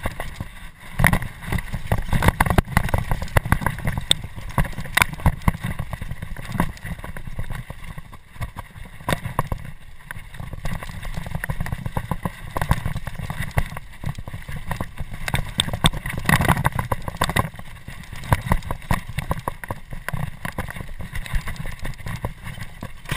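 Mountain bike ridden fast down a rough dirt trail: a constant low rumble of wind and ground noise on the camera microphone, with a steady clatter of sharp rattles and clicks from the bike going over rocks and roots.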